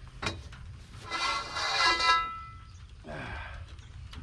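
A steel cheater bar (square tubing) knocks against the rotary cutter's metal, then scrapes metal on metal for about a second with a loud ringing screech that fades out.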